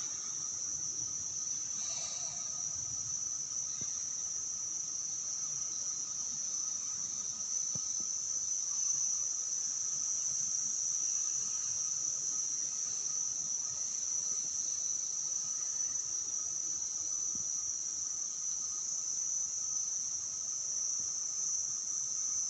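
Insect chorus: a steady, shrill, high-pitched drone that holds unbroken throughout, with a fainter lower tone beneath it.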